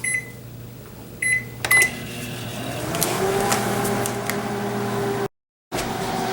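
Microwave oven keypad beeping three times as it is set, then the oven starting up and running with a steady hum, its motor tone rising in pitch for about a second before holding steady. The hum is cut off briefly near the end.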